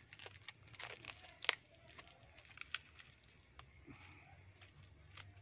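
Scissors snipping through the packing tape of a small taped package, with crinkling and tearing of the tape as it is pulled away. There are several sharp snips, the loudest about one and a half seconds in.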